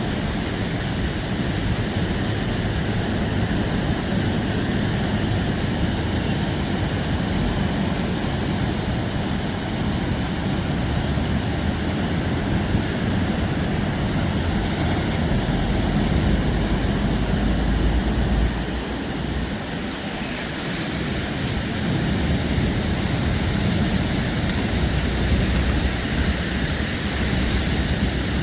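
Steady rushing of wind, rain and ocean surf, with low wind rumble buffeting the microphone that swells for a few seconds past the middle, eases briefly, and builds again near the end.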